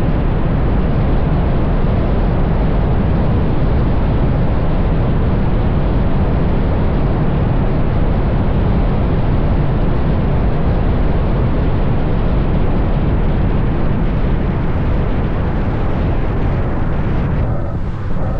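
Steady, loud rush of wind and road noise on a camera mounted on the outside of a moving Ferrari GTC4Lusso, with a heavy low rumble and no clear engine note, dipping briefly near the end.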